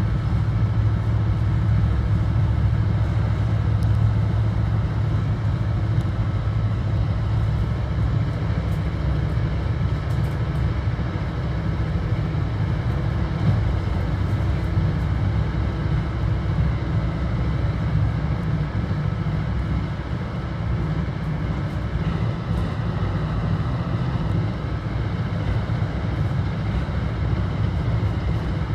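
Steady low rumble inside a moving Bombardier BTC-1B commuter rail coach, from the wheels on the track and the car body, with a faint steady hum above it.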